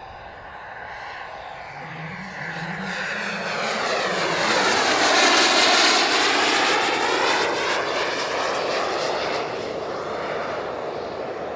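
Jet turbine of a large RC F-104 Starfighter model making a fast pass: the rushing jet noise with a high, thin turbine whine builds to its loudest about halfway through, with a sweeping whoosh as it goes by. The whine drops slightly in pitch at the pass, and the sound then fades as the model flies away.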